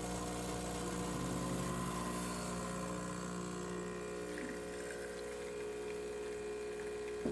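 Espresso machine's newly replaced pump running steadily, a low hum over the hiss of water flowing through the machine during a test run.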